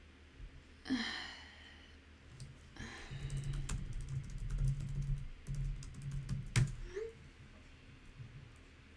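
Typing on a computer keyboard: a quick run of key clicks for a few seconds, ending in a louder single click as the message is sent. A brief sound comes about a second in.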